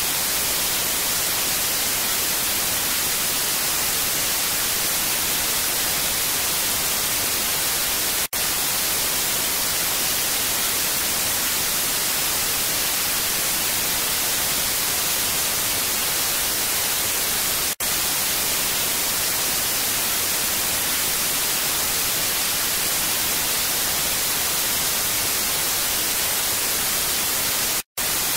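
Steady hiss of TV static, an even white-noise rush heavier in the highs, broken by brief dropouts about 8 and 18 seconds in and a short silence near the end.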